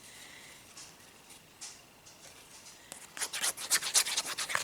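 Paper and plastic being handled: a soft rubbing, then a quick run of scratchy rustles in the last second and a half.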